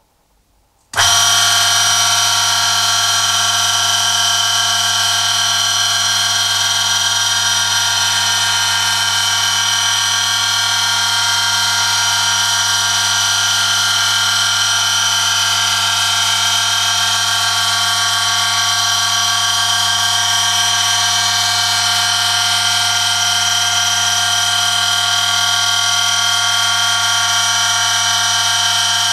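Electric motor of a friction-wear test rig switching on about a second in and running steadily, with a low hum under a loud, steady high-pitched whine. The whine comes from a steel test sample rubbing metal on metal against the spinning oil-lubricated shaft under a 1 kg load.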